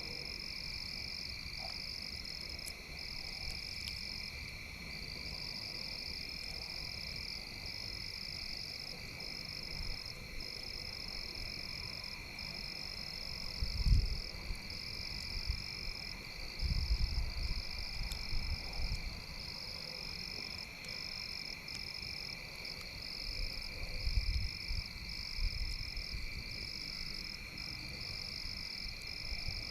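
Steady night chorus of calling frogs and insects, a continuous high trilling. Low rumbles come in three times, about halfway through and near the end.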